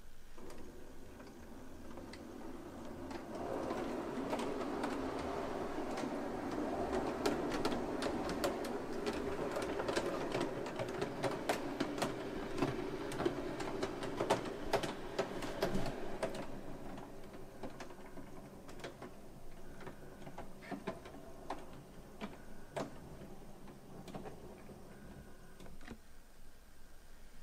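Gauge 1 brass model of the DR class 18.2 steam locomotive 18 201 running on its test track: the motor and gear drive whir, with many small clicks from the wheels on the rails. It grows louder over the first few seconds and fades after about sixteen seconds, leaving scattered clicks.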